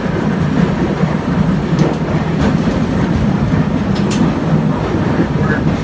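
Heritage electric trolley car running along its track, heard from inside the car: a steady, loud rumble of wheels and running gear, with a few sharp clicks.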